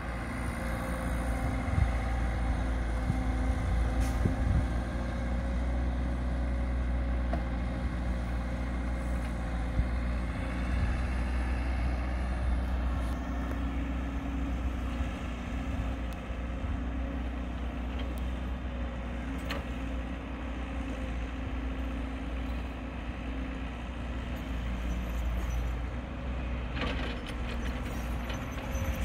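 Caterpillar 312 hydraulic excavator's diesel engine running steadily under working load as it swings and dumps soil into a dump truck, mixed with the trucks' idling diesels. A few faint knocks sound over the steady drone.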